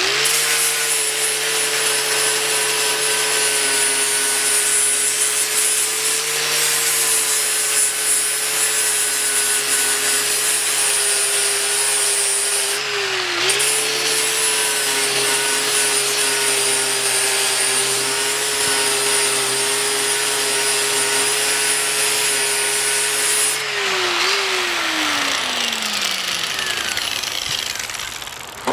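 SKIL angle grinder grinding down welds on a patched sheet-steel tailgate, its motor whine steady with a brief dip about 13 seconds in. About 24 seconds in it is switched off and spins down with a falling whine.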